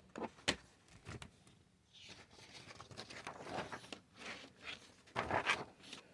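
Handling noise from a paper planner: a few sharp clicks in the first second, then bursts of rustling and scraping.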